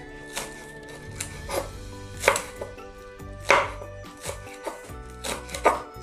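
Chef's knife slicing spring onions on a wooden chopping board: irregular knocks of the blade striking the board, about one or two a second.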